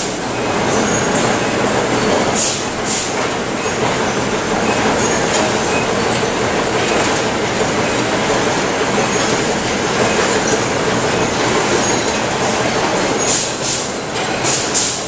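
Oyster processing line running: a steady loud din of conveyor machinery carrying oysters, with sharper clatters about two and a half seconds in and again near the end.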